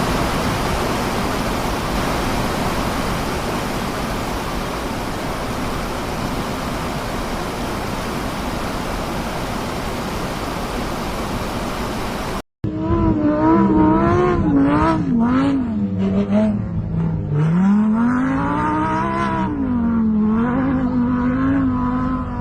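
A car driving with a steady rushing noise of tyres and wind. About twelve seconds in, after a sudden break, an engine is heard revving up and down.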